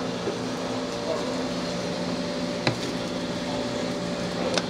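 Steady mechanical hum of a store's background machinery, with two short clicks, one about halfway through and one near the end.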